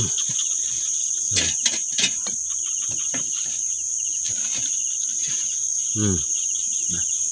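Dense night chorus of forest insects, a loud continuous high ringing with a faster pulsing trill beneath it. Three sharp clicks come about one and a half to two seconds in.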